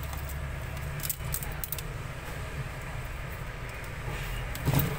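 Faint light metallic clinks of small parts being handled as a replacement charging jack is picked out and set down, over a steady low hum.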